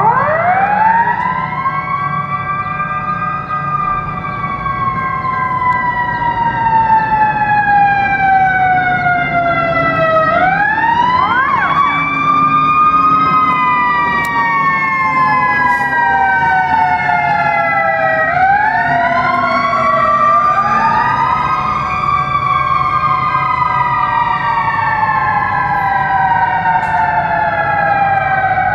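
Emergency vehicle siren winding up quickly and then falling slowly in long wails, about every eight to ten seconds, with two wails overlapping near the end. Railroad crossing bells ring steadily underneath.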